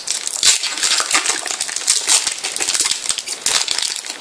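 Foil trading-card packet crinkling and tearing as it is opened by hand, a dense, irregular run of crackles.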